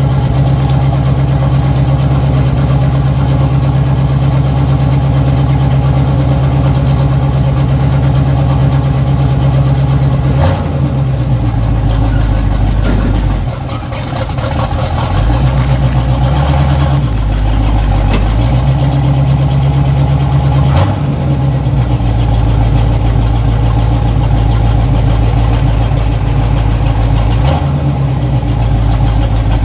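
1984 Chevrolet K20 pickup's carbureted engine idling steadily, its choke already kicked down. About halfway through, the engine note dips and shifts pitch a few times, with a few short knocks.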